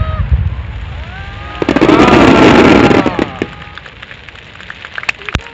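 Aerial fireworks: a loud shell burst about a second and a half in that lasts about a second and a half, followed near the end by a fast run of sharp crackles.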